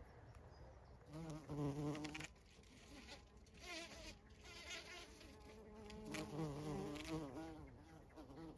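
Bumblebee buzzing in flight, its hum wavering up and down in pitch. It is loudest about a second in and again around six seconds in.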